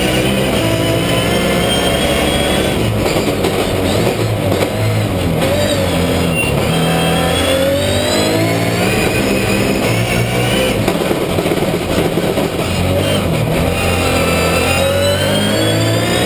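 Logan Supercar rallycross car's engine heard from inside the cockpit, revving hard, its pitch climbing and dropping back at the gear changes several times over.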